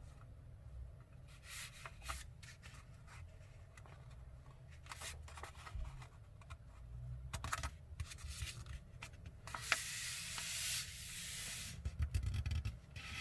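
A sheet of printer paper being handled and folded in half, with light rustles and crinkles, then longer swishing rubs about ten and twelve seconds in as the fold is pressed and the crease run flat.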